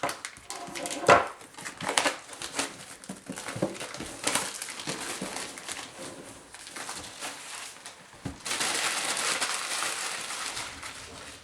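Packaging being handled while a computer power supply is unpacked: crinkling and crumpling plastic with a series of clicks and knocks, then a couple of seconds of steady rustling near the end.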